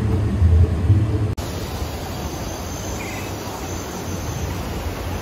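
A low rumble that cuts off after a little over a second, then the steady rush of white water tumbling over rocks in a rapids channel.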